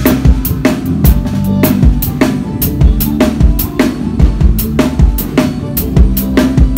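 Drum kit played live in a steady groove: bass drum, snare and cymbal hits in an even rhythm, with sustained low notes under the drums.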